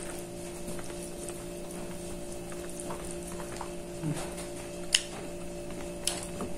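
A steady low hum runs throughout, with a few light sharp clicks and taps as food is picked up by hand and set on a plate of rice.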